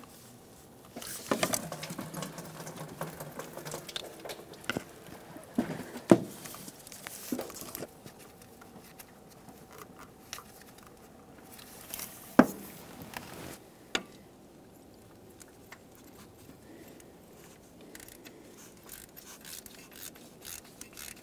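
Gloved hands rustling and scraping against the engine while threading a new coolant temperature sensor into the block, with a few sharp metal clicks from the sensor and tools, and light ticking near the end as a 19 mm socket is worked onto it.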